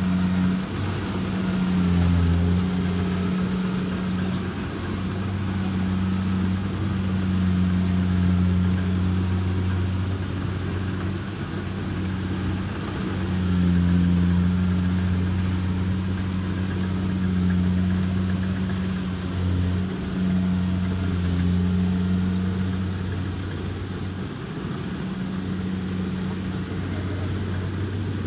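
Kubota combine harvester's diesel engine running under load with a steady deep hum, its level swelling and easing every few seconds.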